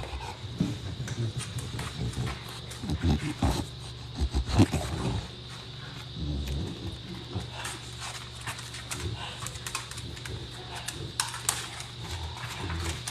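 Bulldogs making low, rough growly noises in irregular bursts, loudest about three to five seconds in, with scattered clicks and rustles around them.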